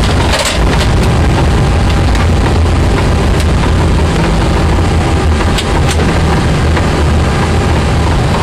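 Loud, steady rumble in the cockpit of an Airbus A340 rolling out along the runway after touchdown: engine, airflow and wheel noise together, with a few faint clicks.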